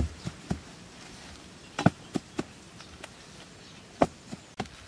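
Hands patting and pressing grass sod down onto bare soil: about ten short thuds in three small groups.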